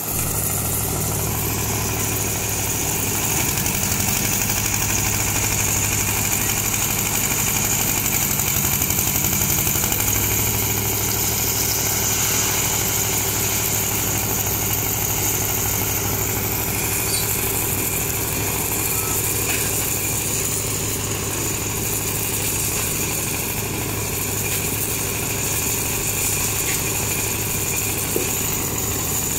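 Engine of a concrete mixer with a bucket hoist running steadily while it lifts concrete to the slab; its low note shifts slightly about ten seconds in.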